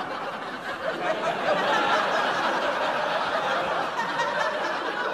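Sitcom studio audience laughing together, swelling about two seconds in and holding.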